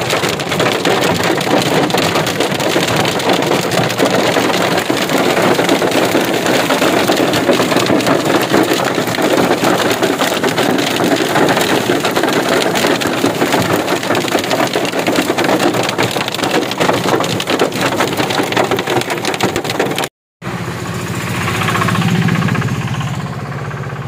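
Hailstones pelting a car's windscreen and body in a dense, loud, continuous clatter. After a short break about 20 seconds in, a quieter passage with a low hum follows.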